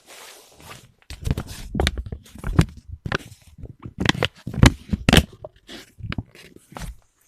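Sticky notes handled close to the microphone: a dense run of sharp, irregular paper crinkles and crackles, starting about a second in.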